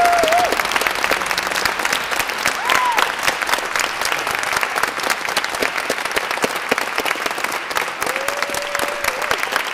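Audience applauding steadily, with a couple of long vocal whoops from individual listeners at the start and again near the end.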